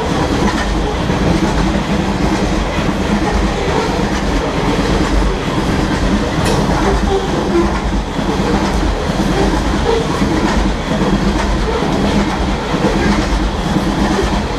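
Freight train hopper cars rolling past close by: steady, loud wheel-on-rail noise with the clatter of the cars.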